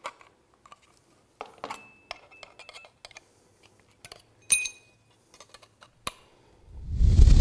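Aviation snips cutting thin aluminium sheet: a scattering of small snips and clicks, with a light metallic clink about four and a half seconds in. Near the end a loud low rumble swells up and drowns them out.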